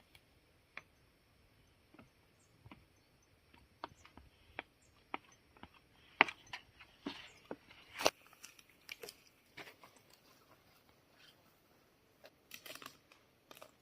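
A run of scattered, irregular sharp clicks and cracks, a few short crackly clusters among them, the loudest a little after six seconds and about eight seconds in.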